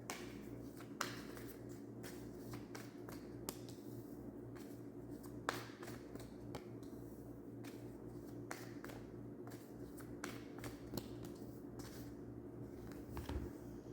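Scattered light clicks and taps of hands handling tarot cards, irregular and spread through the whole stretch, over a low steady hum.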